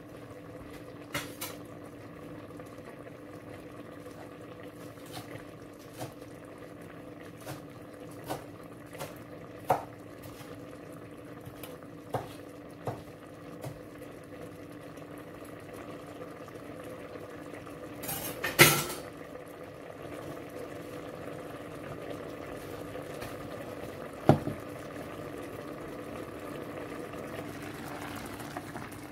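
Lidded pan of mussels in coconut cream sauce simmering on the stove over a steady low hum, with sharp metallic clicks from the pan and lid now and then. A louder clatter comes about two-thirds through and another about four-fifths through.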